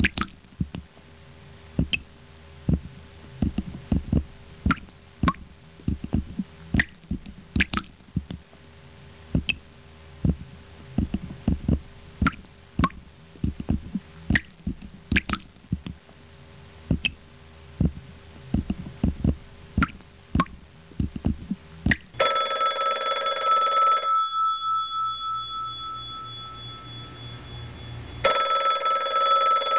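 A run of irregular sharp clicks and knocks over a faint steady hum. About three quarters of the way through, a telephone rings: one ring of about two seconds, a pause of about four seconds, and a second ring starting near the end.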